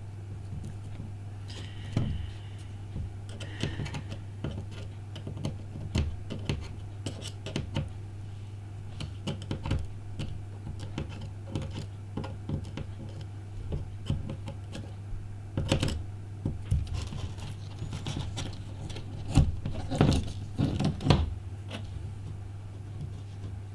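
Irregular small clicks, taps and scrapes of small tools and tiny screws being handled while an iPhone 5 is put back together, with a louder cluster of clatter near the end. A steady low hum runs underneath.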